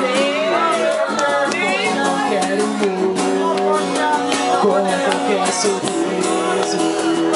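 Live acoustic guitar strummed under a man's singing voice, a slow romantic song in Portuguese, with a light hand-percussion beat from a cajón.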